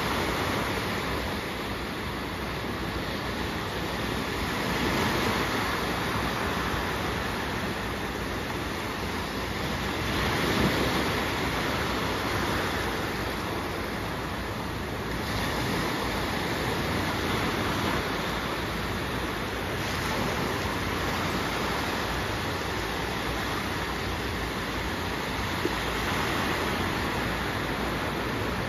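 Small sea waves breaking and washing up on a sandy shore: a steady surf hiss that swells every few seconds as each wave comes in.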